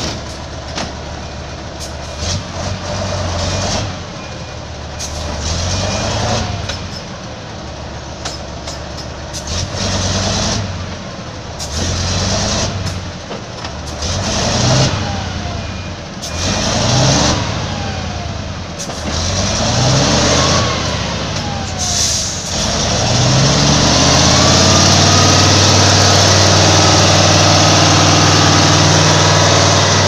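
Wood chipper engine labouring and recovering over and over, about every two seconds, with sharp cracks and falling whines as material goes through. After about 23 seconds it settles into a steady, louder run with a hiss.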